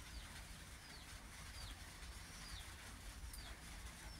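A bird calling faintly in the background: a short high whistle that falls in pitch, repeated about once a second, over a low steady rumble.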